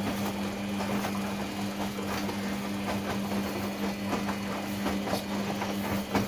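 LG WD-80155NUP front-loading washing machine running mid-cycle: a steady motor hum with scattered light clicks and knocks from the drum.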